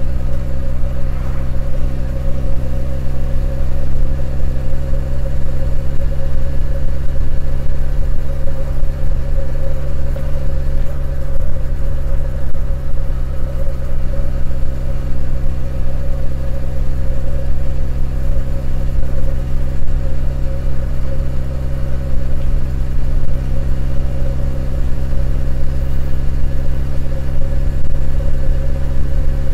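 Honda CB1100EX's air-cooled inline-four engine running steadily while cruising, its note holding an even pitch with no revving up or down.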